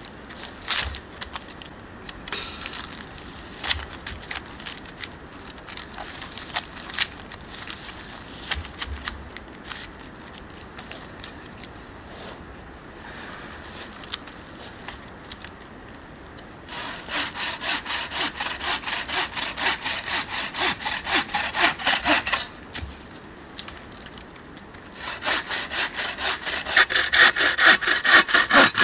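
Hand saw cutting through a dry dead pine branch in quick, even back-and-forth strokes, about three or four a second, in two spells; the second spell, near the end, is louder. Before that, scattered knocks and cracks of deadwood being handled.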